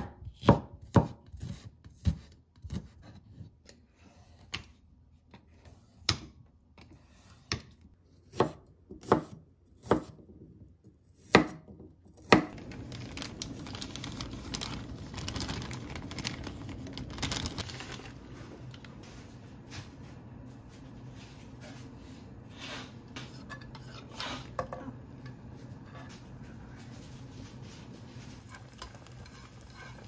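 Chef's knife chopping on a hinoki wood cutting board: about a dozen sharp, separate chops over the first twelve seconds, the loudest sounds here. Then a steady hiss of a pot of water boiling with spaghetti in it, with a few faint clinks.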